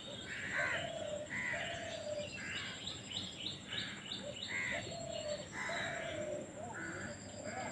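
Baby crow's harsh, repeated begging calls as it is fed, about one call every half second, with lower drawn-out call notes mixed in.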